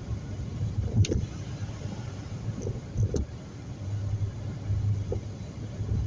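Car driving on a road: a steady low rumble of engine and tyres, with two short sharp knocks about two seconds apart and a couple of fainter ones.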